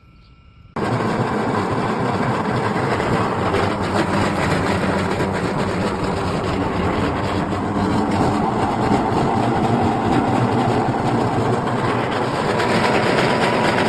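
Feed-processing machine running steadily, a loud dense mechanical noise that starts abruptly about a second in.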